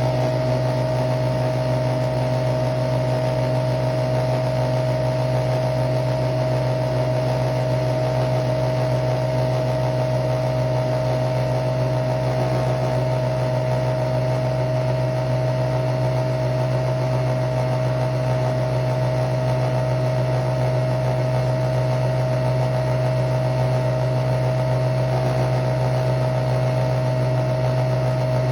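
Nespresso Vertuo Pop+ coffee machine brewing: its capsule-spinning motor and pump run with a steady hum and one constant whine.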